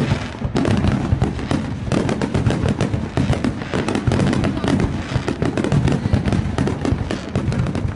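Fireworks display at full intensity: many aerial shells bursting in quick succession, a dense, continuous stream of overlapping bangs and crackling.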